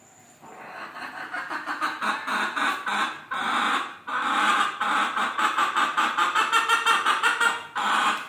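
Hen cackling in long runs of rapid, repeated clucks, starting about half a second in, breaking off briefly twice in the middle, and stopping just before the end.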